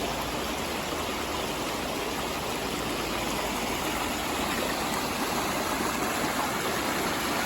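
A river rushing steadily over rocks and boulders.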